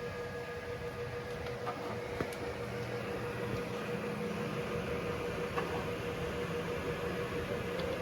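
Creality K2 Plus 3D printer running: a steady mechanical hum with a held tone, a lower motor drone that swells and fades in the middle, and a few light clicks.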